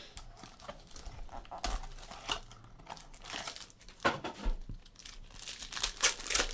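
Sports-card pack wrapper being torn open and crinkled by hand, heard as a run of irregular crackles and rustles.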